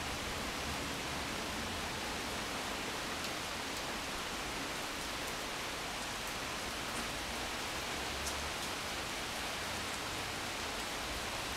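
Steady rain of a thunderstorm falling, an even hiss with a few sharp drip ticks close to the microphone.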